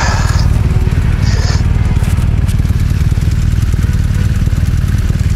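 BMW R1200RT motorcycle on the move: its boxer-twin engine running under a steady, loud, low rumble of riding noise and wind on the microphone.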